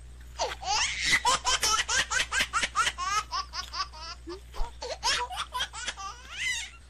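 High-pitched laughter in a rapid, unbroken string of short peals, over a steady low hum.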